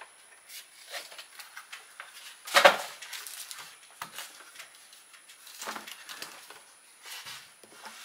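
Handling of plastic bird-feeder parts and foam packing: scattered light clicks and rustles, with one louder brief crunch about two and a half seconds in.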